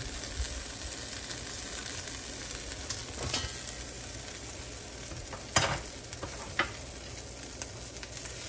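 Chopped pepperoni pizza sizzling steadily as it warms in a nonstick frying pan, with a few sharp knocks about midway.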